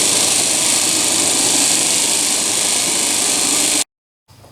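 Steady, loud mechanical noise, like a running fan or blower, with a strong hiss. It cuts off abruptly near the end.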